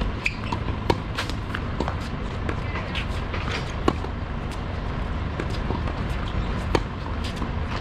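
Tennis rally: sharp pops of racket strings striking the ball, about three seconds apart, with fainter ball bounces, over a steady low rumble.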